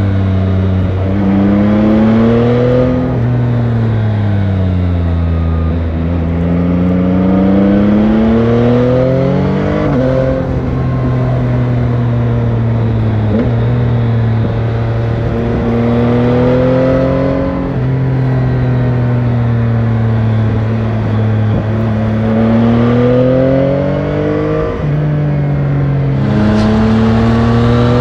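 Yamaha Tracer 9 GT's stock-exhaust CP3 890 cc inline-three engine under way, revving up through the gears: the engine note rises and then drops sharply at each upshift, several times, with stretches of easing off and slowing between.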